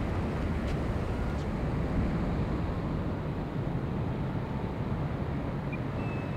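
Steady rush of air over a camera mounted on a 3D-printed RC aerobatic plane in low flight, mixed with the noise of its electric motor and propeller.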